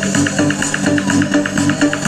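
Electronic dance music played loud through BP Audio's large sound-system rig, with a fast run of short repeated synth notes over a steady bass line.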